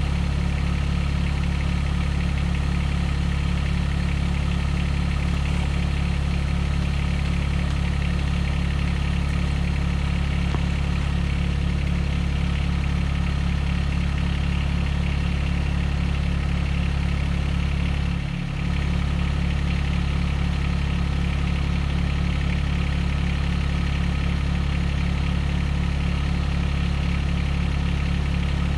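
A small engine idling steadily, with a brief dip in level about 18 seconds in.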